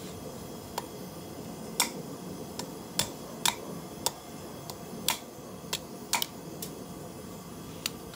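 A hand hammer striking a steel feather blank held in tongs on an anvil while it is forged: about a dozen sharp, light blows at an uneven pace, roughly half a second to a second apart, over a steady rushing background.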